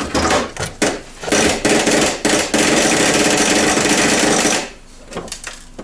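Saeco Vienna coffee machine's ground-coffee doser chattering at switch-on, a fault: it starts with rapid clicks, runs as a dense continuous rattle for about three seconds, then breaks into a few scattered clicks and stops. Normally this doser clicks only a few times, when it drops ground coffee into the brew unit.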